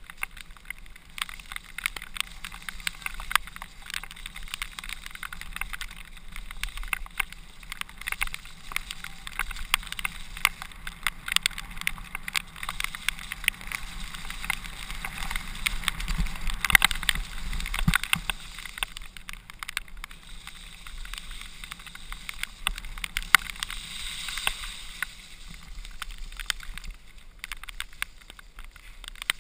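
Mountain bike descending a rough forest trail: a constant rattle and clatter of the bike over bumps with many sharp knocks, tyre noise on the dirt and wind rushing over the camera microphone, busiest about sixteen to eighteen seconds in.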